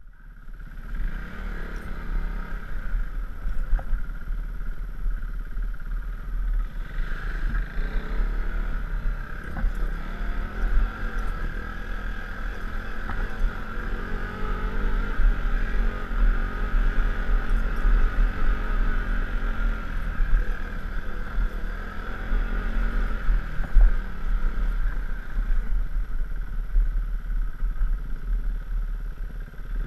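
KTM 390 Duke's single-cylinder engine running as the motorcycle rides along a gravel dirt track, heard through a helmet-mounted camera with a constant low wind rumble on the microphone. The engine note comes through most clearly about halfway through.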